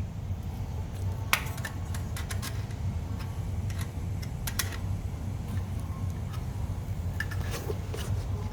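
Scattered small clicks and taps of metal parts and hand tools while the carbon brushes are worked out of a car cooling fan motor's brush holder, over a steady low hum.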